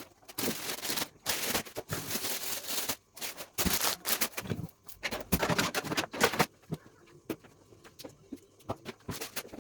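Rustling and crinkling as vegetables and packets are handled and moved about in a fridge, in repeated bursts, then a few light clicks and knocks in the last few seconds.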